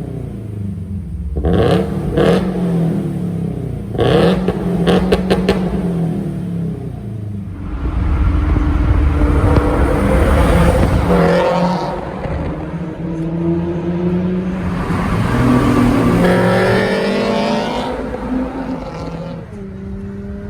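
Flat-four engine of a Subaru BRZ / Scion FR-S / Toyota 86 through a catless exhaust with Tomei unequal-length headers, HKS dual resonated front pipe and Invidia Q300. It gives two quick throttle blips with sharp crackles as the revs drop. Then come two longer runs, around the middle and again near the end, where the engine note climbs steadily.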